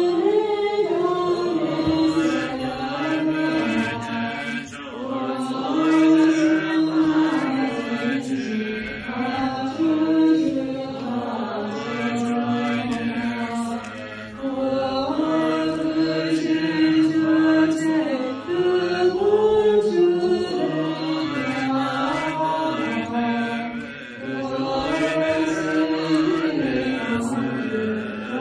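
A group of voices chanting together in a slow, melodic line that holds notes and steps up and down in pitch, with brief dips between phrases: a Tibetan Buddhist prayer recited during the Nyung Ne prostrations.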